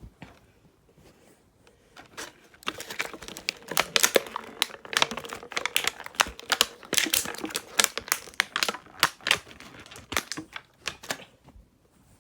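Rapid, irregular clicking and rattling of small hard plastic Beyblade parts being handled, starting about three seconds in and stopping near the end.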